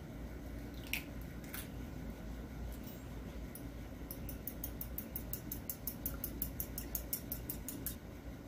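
Two sharp clicks as an eggshell is broken open. Then a metal fork beats the egg in a small ceramic bowl, clinking against the bowl about five times a second for several seconds, over a low steady hum.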